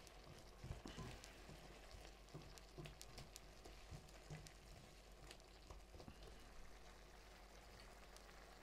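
Faint simmering and sizzling of diced pumpkin in a pan with a little water on low heat. There are scattered light scrapes and taps from a plastic spatula stirring the pumpkin.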